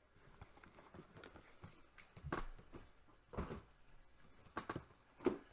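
Faint handling of cardboard boxes: soft rustling with about four light knocks as the boxes are moved and set down.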